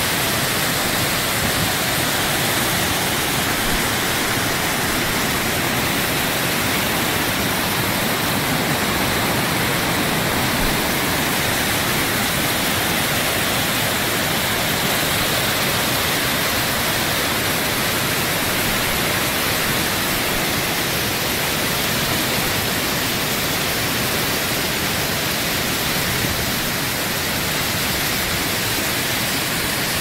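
Steady rush of a mountain waterfall's falling water, an even hiss-like noise that does not change.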